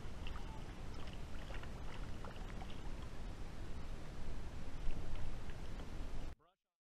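Water splashing and dripping beside a kayak as a largemouth bass is lifted out by hand, with light ticks of drops throughout and the loudest splashing about five seconds in. The sound cuts off abruptly near the end.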